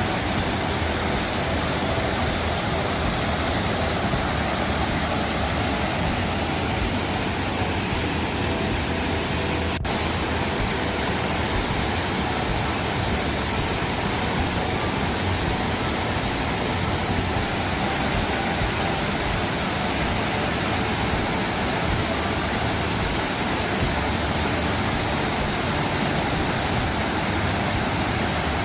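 Steady rushing of a waterfall: an even wash of falling water that does not change.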